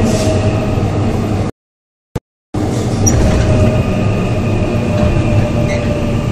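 Interior running sound of a Korail Class 3000 (70 series) electric multiple unit with Mitsubishi GTO traction equipment, running steadily: a constant rumble with a steady whine over it. About a second and a half in, the sound cuts out completely for about a second, with one click in the gap, then resumes unchanged.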